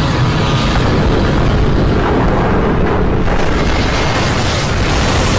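Loud, continuous rumbling of explosions, a steady wall of booming noise with no single distinct blast, from the battle-scene sound effects of the animated episode being played.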